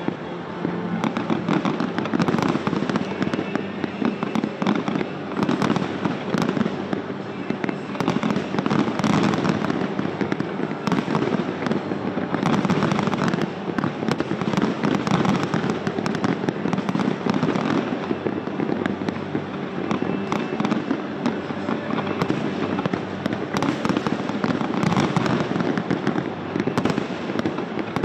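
Aerial fireworks fired from barges offshore, many shells bursting in quick succession: a continuous run of bangs and crackles with no pause.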